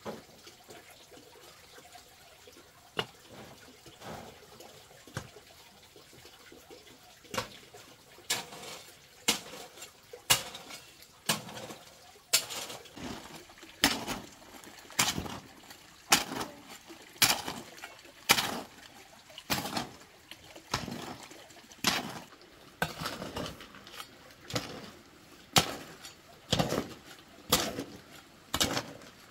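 A long-handled steel shovel digging into a heap of sand and gravel, each stroke a sharp gritty scrape with a rattle of small stones. The strokes come about once a second from several seconds in.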